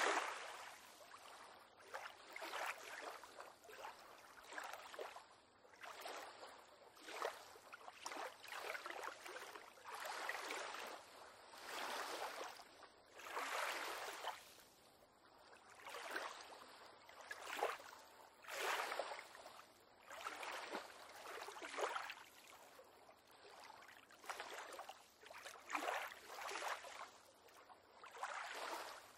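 Small waves lapping and sloshing against a small pier in irregular splashy surges, roughly one every one to two seconds.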